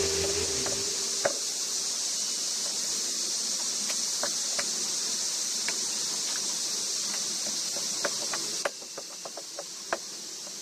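Quiet outdoor ambience: a steady high-pitched hiss with scattered small ticks and clicks, like twigs or leaves being touched. The end of a music track fades out in the first second, and the hiss drops off suddenly near the end.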